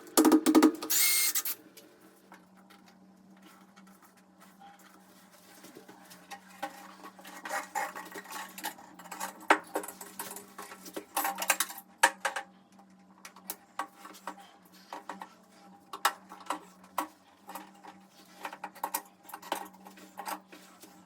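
A power tool runs briefly at the start, then irregular small clicks, rattles and knocks of tools and fittings being handled during the installation work, over a faint steady hum.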